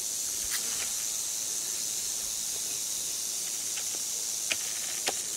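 Timber rattlesnake rattling its tail, a steady high buzz: the warning rattle of a snake pinned in tongs. A few faint clicks sound in the second half.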